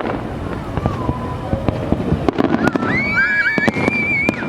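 Fireworks display: a dense run of pops and bangs from firework bursts. About halfway in, a high held tone rises over the bangs and lasts nearly two seconds.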